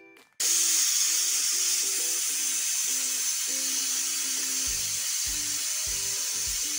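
Aluminium stovetop pressure cooker whistling: a loud steam hiss starts suddenly about half a second in and holds steady, as the weight on the vent lifts to release built-up pressure.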